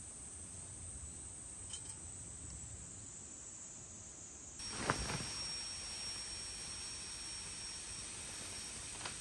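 Quiet outdoor forest ambience: a steady hiss with a faint high insect buzz. About halfway through the background changes abruptly to a brighter hiss with a thin, steady high whine, and there is a single thump just after the change.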